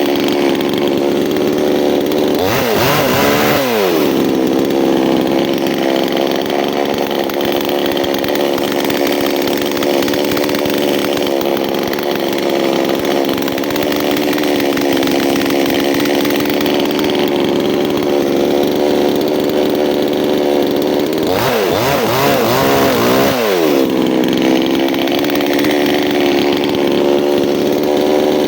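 Chainsaw running steadily at high revs while cutting wood. Twice, about 3 s in and again about 22 s in, the engine speed drops and then climbs back up.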